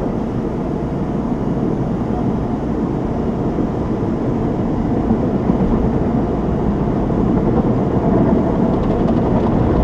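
Steady low vehicle rumble, such as a truck heard from inside its cab, slowly growing a little louder.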